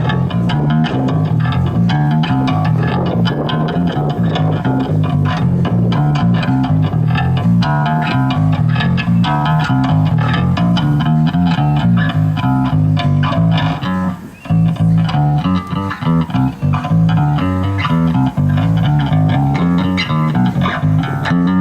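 Band playing at a sound check: a prominent bass guitar line with electric guitar over it. The playing breaks off briefly about 14 seconds in, then resumes.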